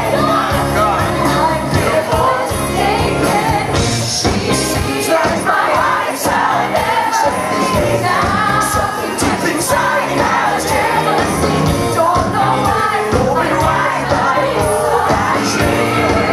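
Live band of electric guitar, drums and keyboard playing a pop-rock musical-theatre duet, with a male and a female singer singing into microphones. The audience is audible under the music.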